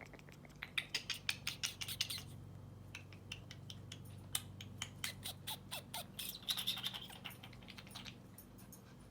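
Green parrot making soft clicking and chattering sounds: runs of quick clicks in the first two seconds and again from about four to seven seconds, with a few short chirps around six seconds in.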